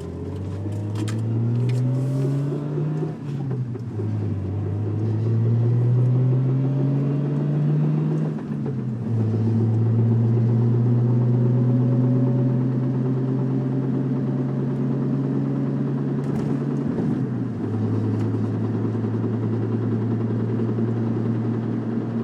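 1997 Nissan Maxima's 3.0-litre V6 pulling away and accelerating through the gears: the engine note rises, drops at each upshift (three times), then holds steady at a cruising speed.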